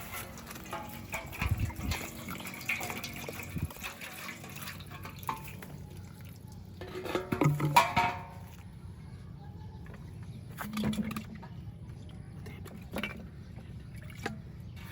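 Water sloshing and trickling, with scattered small clicks and splashes, and a louder pitched, voice-like sound about seven to eight seconds in.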